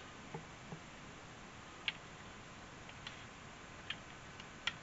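About half a dozen faint, sharp clicks and taps at irregular intervals as fingers handle thin wires and a small LED, over quiet room hiss.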